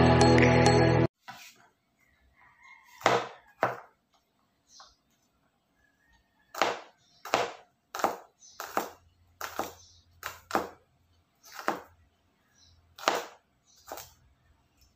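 Kitchen knife chopping garlic on a wooden cutting board: about a dozen separate knocks at uneven intervals. Intro music plays at the start and cuts off suddenly about a second in.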